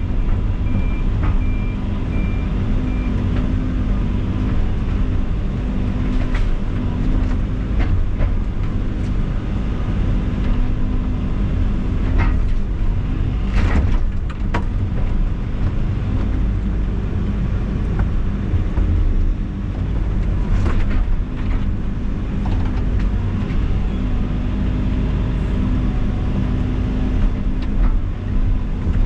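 Diesel engine of heavy land-clearing equipment running steadily under load while pushing out trees, with sharp cracks of wood and roots breaking, loudest about 12 to 15 seconds in and again around 21 seconds. A short run of beeping sounds in the first few seconds.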